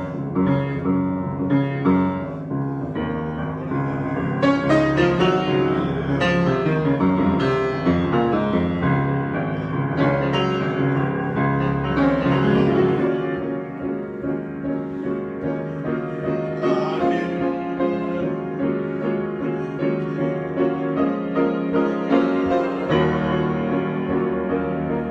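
Improvised piano music, chords and melody played without a break; the deepest bass notes drop away about halfway through.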